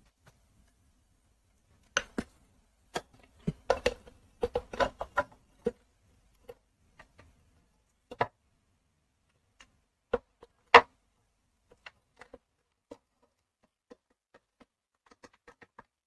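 Scattered metallic clicks and knocks from a Honda CD 70's front drum-brake plate and cam lever being handled and fitted by hand. A quick cluster of clicks comes a few seconds in, and the sharpest single knock about two-thirds of the way through.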